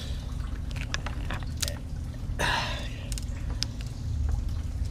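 Rubber radiator hose being lifted and worked by hand to drain the last coolant: scattered small creaks, clicks and scrapes, with a brief rustling rush about two and a half seconds in, over a steady low hum.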